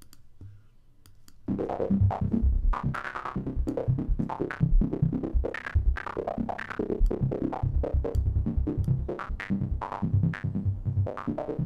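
Xfer Serum software synth patch playing: a sawtooth note through a resonant band-pass filter, its cutoff and resonance jumping randomly under sample-and-hold modulation and its level chopped into fast sixteenth-note pulses by an LFO. It comes in about a second and a half in.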